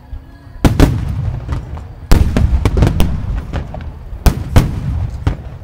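Aerial firework shells bursting in quick succession: a sharp bang a little under a second in, then a louder bang about two seconds in followed by a rapid string of booms and crackles, and a few more bangs near the end.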